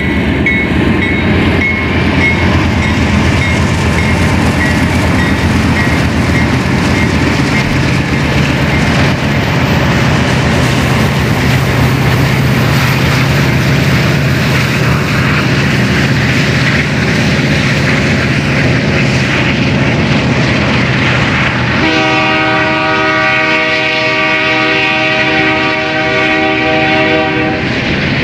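BNSF westbound freight train, led by locomotive 5147, passing close by: a loud, steady rumble of diesel locomotives and wheels on the rails. About 22 seconds in, a locomotive air horn blows one long blast of several tones together, lasting about five seconds.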